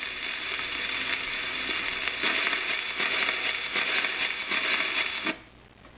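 Surface noise of a 1920s 78 rpm shellac record after the music has ended: steady hiss and crackle with a faint click about every three-quarters of a second, once per turn of the record, as the stylus runs on past the recording. It cuts off suddenly about five seconds in.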